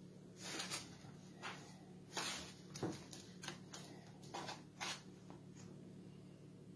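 Spatula scraping and spreading thick cake batter in a metal baking pan: a run of short, irregular scrapes and squishes, faint, over a steady low hum.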